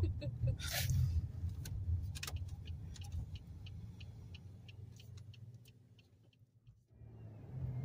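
Low rumble of a car driving, heard from inside the cabin, with scattered clicks and rattles as it rolls over rough pavement. The rumble fades out about six seconds in and comes back about a second later.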